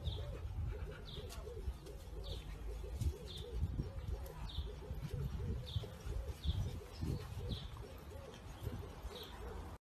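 Birds calling: a short high chirp about once a second over a fast, steady run of low cooing notes, with a low rumble underneath. It cuts off abruptly just before the end.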